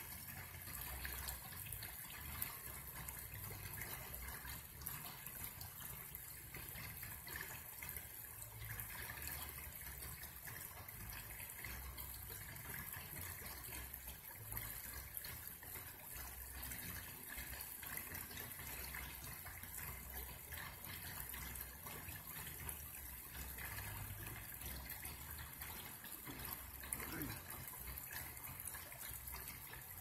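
Shallow creek babbling steadily over a small rocky riffle: an even trickling and splashing of running water.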